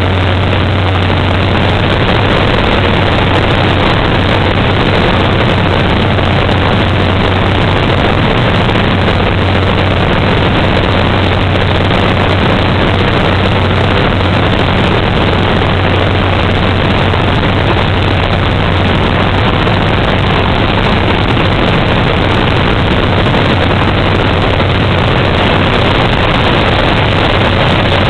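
Steady cabin noise of a turbine DHC-3 Otter floatplane in flight: the turboprop engine and propeller run at constant power, giving a strong low hum under a dense rushing noise.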